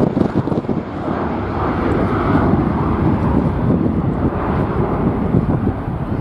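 Strong wind buffeting the microphone, with the engine noise of a passing jet airliner swelling through it in the first few seconds.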